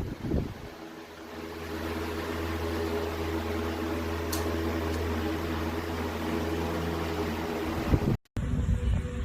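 16-inch electric wall fan running with a steady motor hum, which builds up over the first second or two. The hum stops suddenly near the end, followed by a brief moment of silence.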